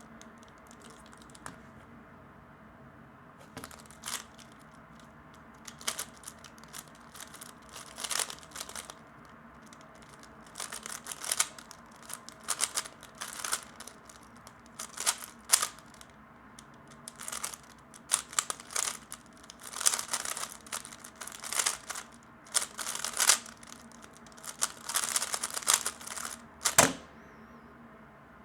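3x3 speedcube being turned in quick bursts of finger moves, its plastic layers clicking and rattling, with short pauses between bursts; one sharp knock near the end.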